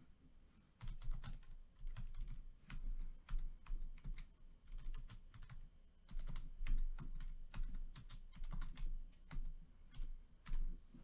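Typing on a computer keyboard: quick, irregular key clicks in short runs, starting about a second in.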